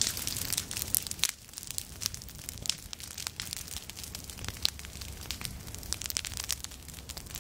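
Prescribed prairie fire burning through dry goldenrod and grasses, crackling with many irregular sharp pops and snaps.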